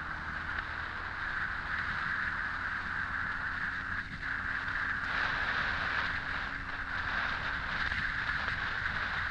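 Honda X4 motorcycle's inline-four engine running steadily under way, mixed with steady wind rushing over the microphone.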